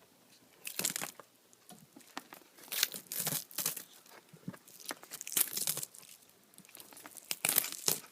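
Insulated wire pulled past the blade of a homemade spring-tensioned wire stripper, the blade scraping and tearing through the insulation. Four noisy pulls about two seconds apart.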